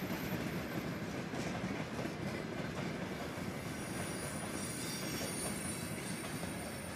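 Loaded tank cars of a freight train rolling past at close range: a steady rumble of wheels on the rails. A thin high-pitched wheel squeal joins in about halfway through.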